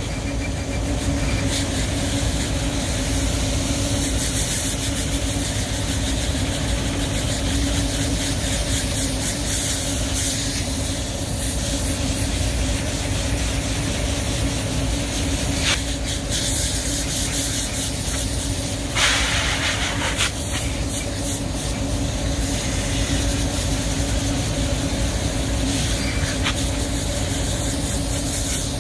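Water spray from a hose nozzle hissing against an evaporator coil as it is rinsed clean, over a steady machine hum. The spray sharpens briefly a couple of times, around the middle.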